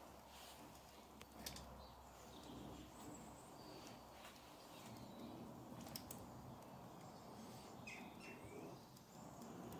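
Near silence: faint outdoor background noise with a few brief bird chirps and a handful of faint clicks.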